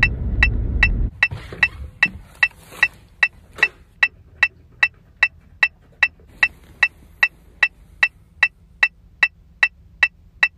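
Metronome clicking steadily at about two and a half clicks a second (around 150 beats per minute). A low rumble sits under it for the first second.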